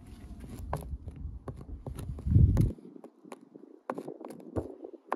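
Plastic toy horse figures tapped and scraped on wet paving stones: irregular light clicks and taps. A low rumble underneath swells loudest just past two seconds in, then stops abruptly.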